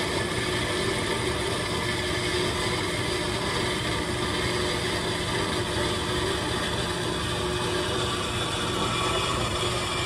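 Horizontal metal-cutting band saw running steadily, its electric motor humming while the blade cuts through a clamped metal tube under its own downfeed.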